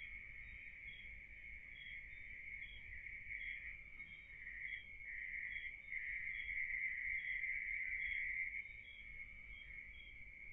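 Night insect chorus of crickets trilling steadily, swelling louder for a couple of seconds past the middle. A higher chirp repeats evenly about every two-thirds of a second.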